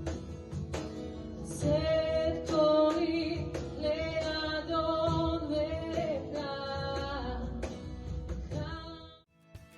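Worship song: a woman's voice singing a slow, held melody over instrumental accompaniment with plucked notes, breaking off briefly near the end.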